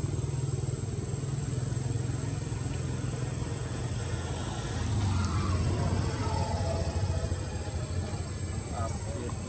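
Steady low drone of a motor vehicle's engine. About five seconds in it grows louder, with a whine that falls in pitch as it passes, then it eases off.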